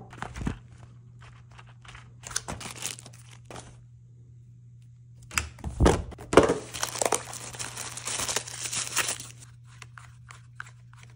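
A cardboard retail box opened and its packaging handled by hand: rustling and tearing in bursts, the longest from about five to nine seconds in, then a few light clicks, over a low steady hum.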